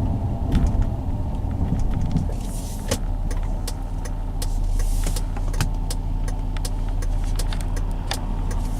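Car driving, heard from inside the cabin: a steady low engine and road drone, with scattered light clicks and rattles and two brief hisses.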